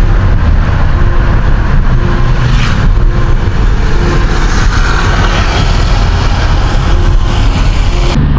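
Steady road noise of a car being driven, heard from inside the cabin: a low rumble of the engine and tyres with a hiss over it.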